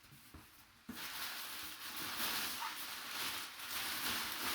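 A rustling, rubbing noise that starts suddenly about a second in and goes on, rising and falling.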